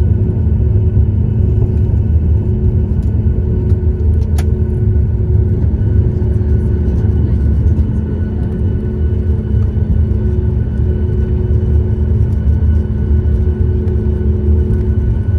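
Steady low rumble with a constant hum inside the cabin of a Boeing 737 airliner on the ground before takeoff, with a faint click about four seconds in.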